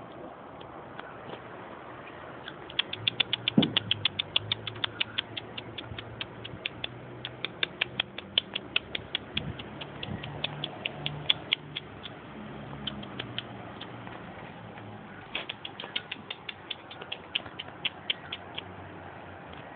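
A person making rapid clicking sounds with the mouth, several clicks a second, to call a grey squirrel: one long run of clicks, a pause, then a second shorter run near the end.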